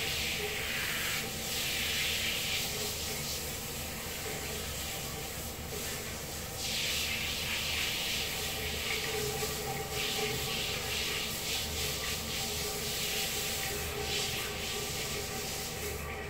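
Hands scrubbing a cat's wet, soapy fur in a foamy bath: a soft rubbing swish that swells and fades every few seconds over a steady background hiss.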